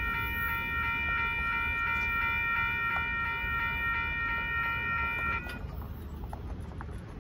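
Railroad crossing warning bell ringing steadily, then cutting off suddenly about five seconds in as the crossing clears and the gates start to rise. A low rumble runs underneath.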